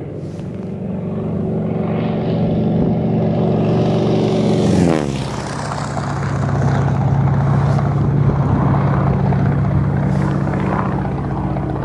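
Low-flying biplane's engine and propeller droning as it comes in over the field, growing louder. About five seconds in the pitch drops as it passes, then it drones on steadily at the lower pitch.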